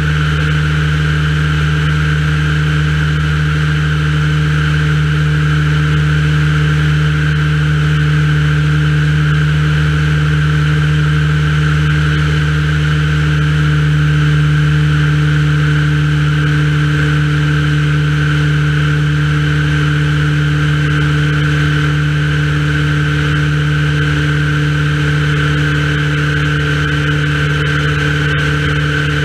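Light aircraft's propeller engine running steadily in flight, a constant drone with several held pitches and no change in power.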